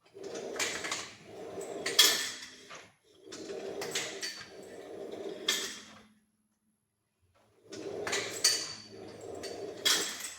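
Hamstring-curl reps: a scraping slide out and back, heard as three pairs of strokes each about a second and a half long, with sharp clicks and a longer pause after the second pair.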